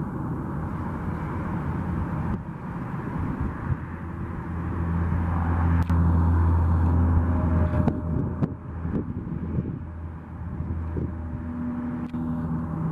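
Steady engine noise over a constant rush, with a low hum that swells louder from about four seconds in and fades a little before returning near the end.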